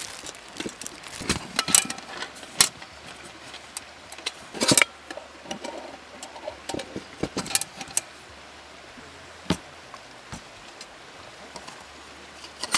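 Scattered light clicks, knocks and rustles of small objects being handled, busiest in the first half and thinning out to a few faint ticks over the last few seconds.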